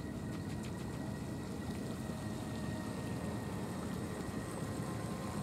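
Faint steady whine of a 1 m radio-controlled model cruiser's brushless electric motor as the boat runs across the water, over a steady low rumble.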